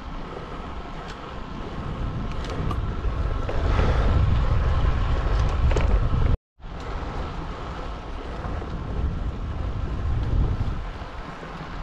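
Wind rushing and buffeting over the microphone of a camera on a moving bicycle, swelling louder about four seconds in, breaking off for a moment at about six seconds and then carrying on.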